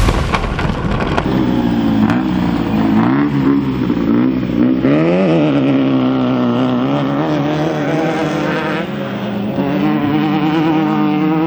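Off-road race vehicle's engine running hard, its pitch rising and falling repeatedly with the throttle.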